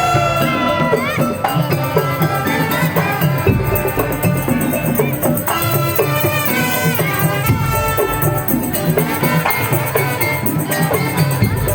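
Loud, steady traditional-style music: percussion with a melody line that slides between notes.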